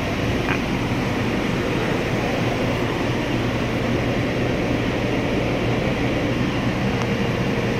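Steady, even mechanical droning and hiss with a low hum, like a running fan or ventilation unit. A faint steady tone joins near the end.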